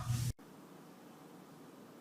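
Near silence: a low hum with background noise cuts off abruptly a moment in, leaving only faint room tone.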